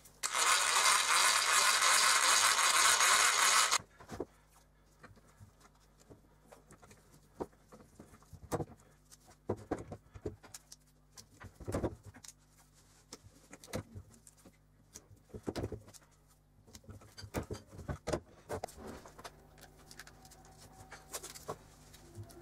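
A loud, steady hiss for about three and a half seconds that starts and stops abruptly, then scattered light clicks and knocks of small tools and hand-drill parts being handled on a workbench.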